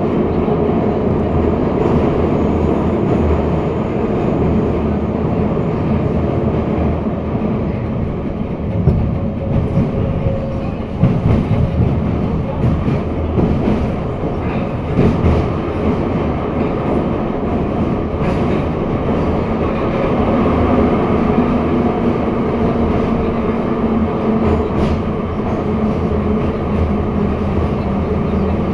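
Metro train running between stations, heard from inside the carriage: a steady rumble of wheels and running gear, with knocks from the wheels over rail joints in the middle stretch.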